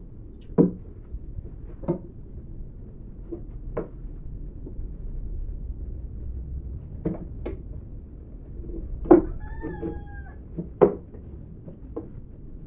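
Sonokeling wooden table parts knocked and tapped together during assembly: about eight irregular sharp knocks, the loudest about half a second in, about nine seconds in and about eleven seconds in, with a brief squeak just after the one at nine seconds.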